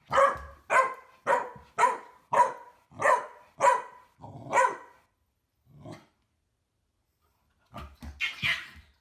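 A dog barking in a steady series: about eight sharp barks a little over half a second apart, then a pause of about two seconds and a last few barks near the end.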